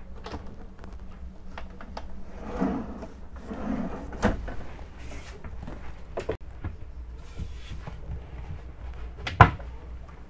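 Cabin locker doors and a stowage-bin lid being opened and closed by hand: a series of clicks and knocks from latches and hinges, with some handling rustle, and the loudest knock near the end.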